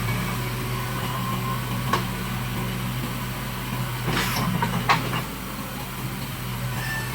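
Heavy diesel machinery engine running steadily, with a few sharp metallic knocks about two seconds in and again around four to five seconds in.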